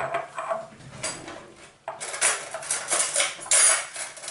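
Metal cutlery clinking and clattering in a kitchen drawer as a spoon is picked out: a run of jangling clatters, loudest about three and a half seconds in.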